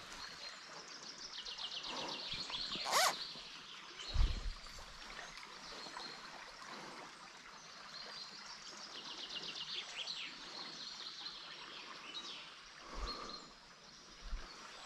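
Faint riverside ambience: a small river flowing gently, with a rapid run of high ticks twice and a few dull low thumps.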